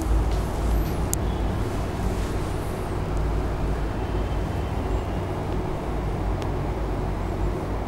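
Steady low background rumble with a constant hum, and no distinct events.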